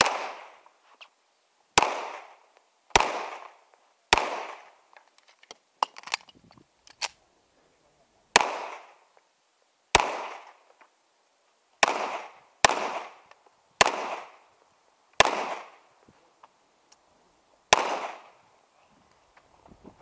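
A pistol firing about a dozen single shots at uneven intervals of one to two seconds, each sharp crack followed by a short echo; a few fainter pops come near the middle.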